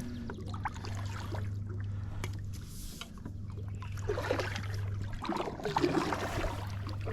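Small water sounds, trickling and light splashing, around a fishing kayak, with a steady low hum underneath and scattered small ticks, busiest in the second half.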